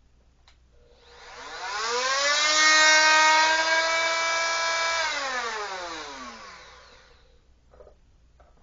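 Oscillating multi-tool (oscillating sander) with a sanding pad fitted, run briefly: the motor whine climbs to speed about a second in, runs steadily for about three seconds, then winds down after switch-off. It is run to seat the new pad and break it in.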